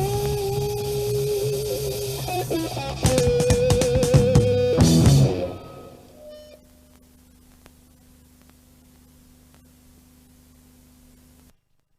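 Rock band of electric guitar, bass and drums playing the closing bars of a song: held, wavering guitar notes, then a burst of drum hits under a final loud chord that stops about five and a half seconds in. After it only a faint hum remains, and that cuts off near the end.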